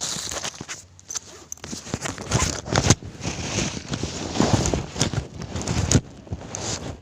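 Irregular clicks, knocks and rustling from parts being handled, with no motor running.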